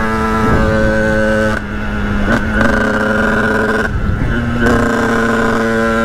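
Sherco 50cc two-stroke supermoto engine running at high revs while riding, with the revs dropping briefly twice, about a third of the way in and again past halfway, before picking up again.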